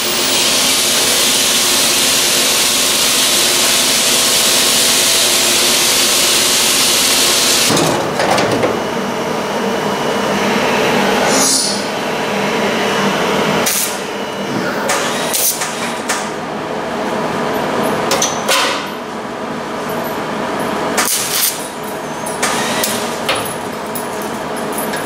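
A power tool cutting the sheet metal of an old pickup cab runs steadily for about eight seconds, then stops. After that come several short, separate crackling bursts, each about half a second long, from a MIG welder tacking at the cab's door pillar.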